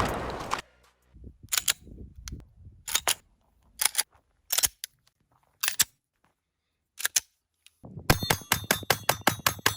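Pistol shots fired one at a time, about a second apart, then near the end a rapid string of shots, about five or six a second, with a ringing tone behind them.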